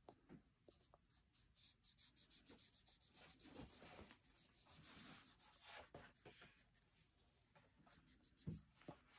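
Liquid chalk marker tip rubbing across a black chalk-art board in quick back-and-forth colouring strokes, several a second, faint and scratchy. A soft thump comes near the end.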